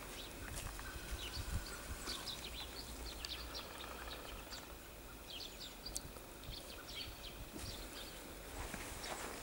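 Dog sniffing and snuffling with its nose in fresh snow: faint, scattered short snuffles and soft crunches. Footsteps crunching in snow start again near the end.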